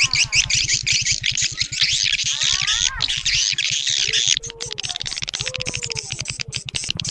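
Swiftlet lure recording: a dense chorus of rapid, high twittering chirps from many swiftlets over a fast, even low pulse. The chirping thins about four seconds in.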